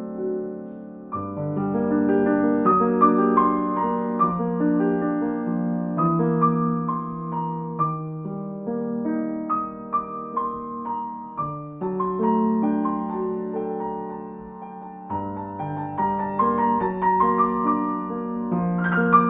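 Slow, calm solo piano music: gentle sustained chords with melody notes over them, changing harmony every few seconds.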